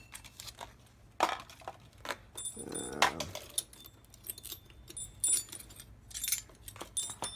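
Steel hole saws clinking and knocking against each other and their case as they are picked through, with a light metallic ring on several of the clinks.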